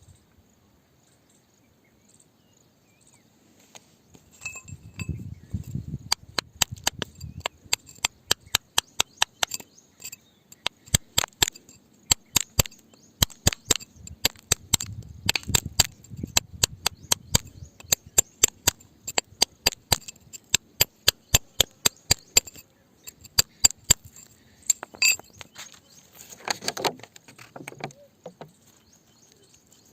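A steel hammer strikes rock over and over, with sharp clinks at about three a second. The strikes stop for a moment and pick up again briefly, then comes a duller scraping knock near the end.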